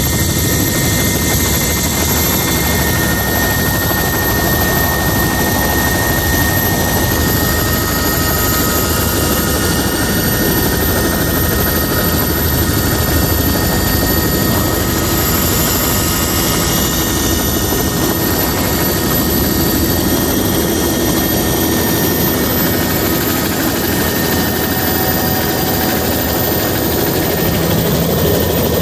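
Helicopter engine and rotor noise heard from inside the cabin, steady, with a thin high whine running through it. The low rumble grows stronger near the end.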